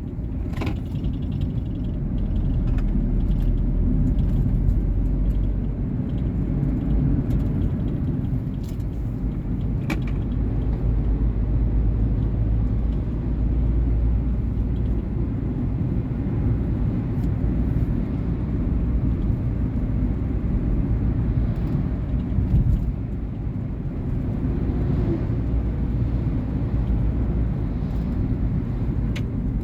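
2019 Volkswagen Polo Vivo driving, a steady low rumble of engine and road noise, with a few brief clicks.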